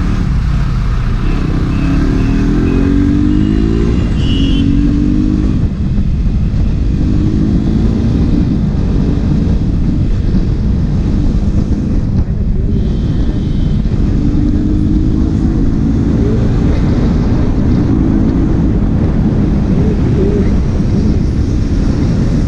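Motorcycle engine running under way, its note rising and falling repeatedly as the rider speeds up and eases off in traffic, over a steady low rush of wind on the helmet microphone.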